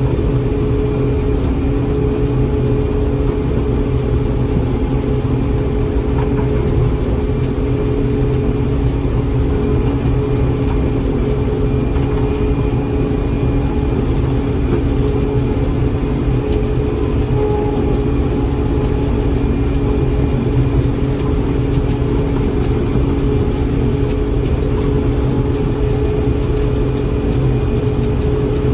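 John Deere 4400 combine running steadily while harvesting corn: an even mechanical drone with a few steady hum tones that holds at the same speed throughout.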